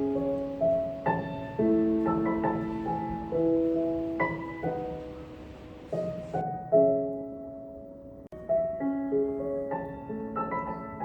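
Background piano music: a gentle melody of sustained notes, with a brief break about eight seconds in before it resumes.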